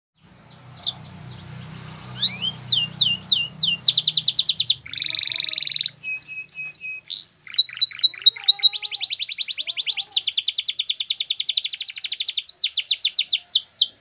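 Canary singing a long, unbroken song of fast downward-sweeping notes, rapid trills and buzzy rolls. It starts faint and grows loud about two seconds in.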